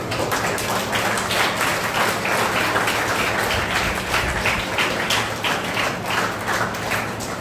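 Audience applause: many hands clapping in a dense, irregular patter, strongest in the middle and easing off near the end.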